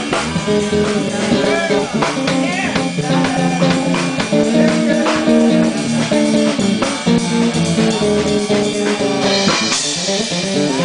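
Live band playing: electric bass, drum kit and keyboards, with a high cymbal-like wash about nine seconds in.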